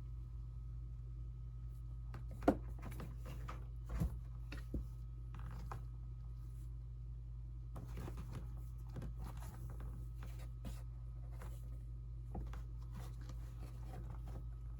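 A kitten playing on cardboard: scattered light scratches, taps and rustles, with a sharp tap about two and a half seconds in and a couple of soft thumps soon after, over a steady low hum.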